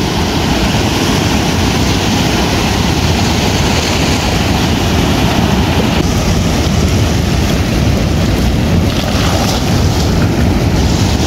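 Ocean surf washing up a beach, with wind buffeting the microphone; a steady, even rush of noise.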